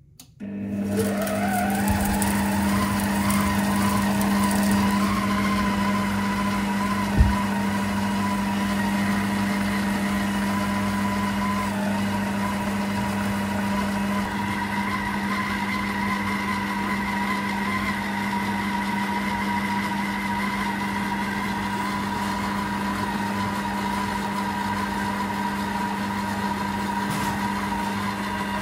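Electric kitchen mixer starting up, its motor whine rising in pitch over the first couple of seconds, then running steadily with a hum and a high whine as it beats chocolate cake mix with two eggs. A single short knock about seven seconds in.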